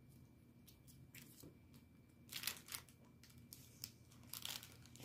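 Take-out food wrapping being handled: faint clicks and two short bursts of crinkling, about two seconds in and again near the end.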